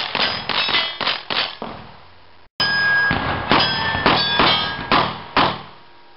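A rifle fired rapidly at steel plates: about a dozen shots in two quick strings with a short break midway, each hit answered by the ring of a steel target.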